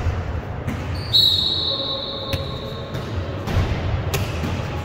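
A referee's whistle blown once about a second in and held for about a second, with a few dull thuds of a volleyball being hit or bouncing on the gym floor.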